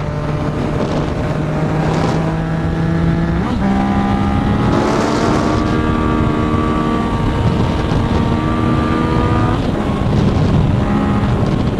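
Motorcycle engine under way with wind rushing on the microphone. About three and a half seconds in, the engine note jumps higher and then climbs slowly as the bike accelerates gently, falling back about two seconds before the end.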